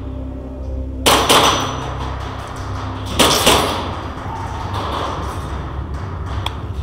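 Two short bursts of airsoft gunfire with BB impacts, about a second in and again about three seconds in, echoing in a large hall over a steady low hum.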